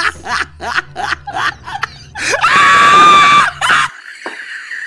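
A person laughing in short bursts, then letting out a long, shrill, steady scream for about a second, starting about two seconds in.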